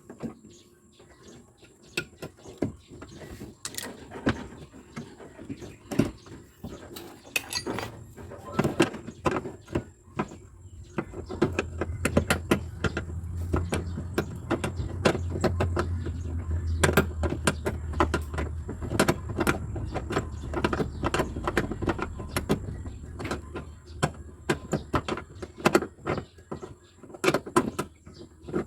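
Irregular clicks and knocks of hand tools on a car's bumper and body panel as it is taken apart. A low steady hum comes in about eleven seconds in.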